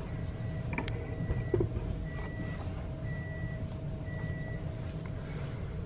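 A high electronic beep repeating about once a second, five times, over a steady low hum; the beeping stops a little after halfway.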